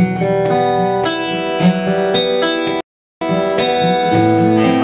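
Acoustic guitar strummed and picked, playing an instrumental passage without singing. The sound cuts out completely for a moment about three seconds in, then the playing resumes.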